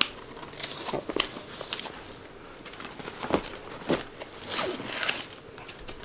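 Nylon sling backpack being handled: fabric rustling and swishing, with a few light clicks from its straps and fittings.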